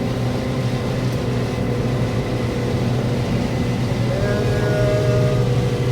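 Combine harvester running at a steady drone while shelling corn, with a faint higher whine joining about four seconds in.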